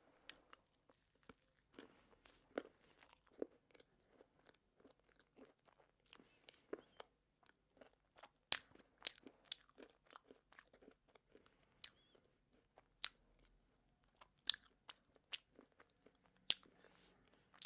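Close-miked chewing of a mouthful of cake: faint, irregular wet mouth clicks and soft crunches, one or two a second.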